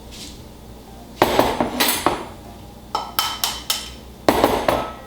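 Quick clinks and taps against a ceramic mug, in three short bursts of several strikes each, with a brief ringing after each strike.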